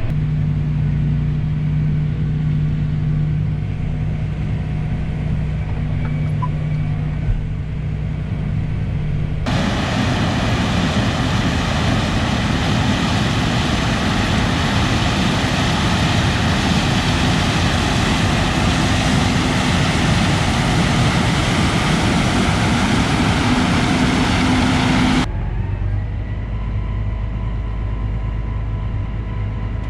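A combine harvester running steadily, with a low engine hum. About ten seconds in, a much louder rushing machine noise cuts in abruptly. It stops just as suddenly about fifteen seconds later, and the steady hum returns.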